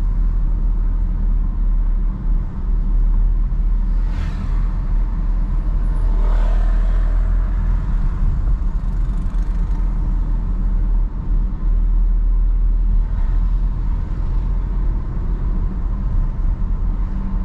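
Car driving at low town speed, heard from inside the car: a steady low rumble of engine and tyres on the road. Two brief higher swells of noise come through about four and six seconds in.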